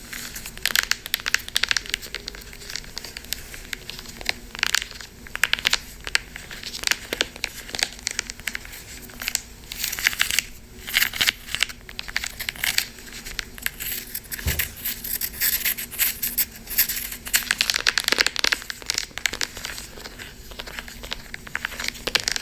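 Crunchy wax slime being cracked and crushed: a dense, irregular run of crackling and crinkling snaps.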